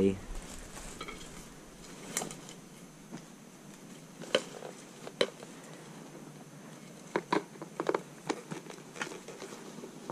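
Scattered sharp clicks and knocks of the prop's twist-lock support poles being handled and fitted together, with several close together about seven seconds in.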